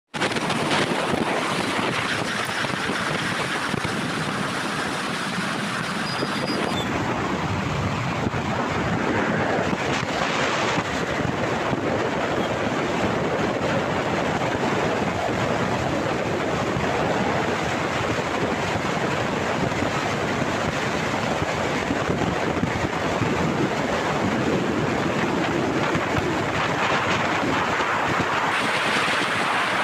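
Steady rush of wind on the microphone from a motorcycle riding at road speed, with the TVS Apache RTR 160's engine and tyre noise running underneath.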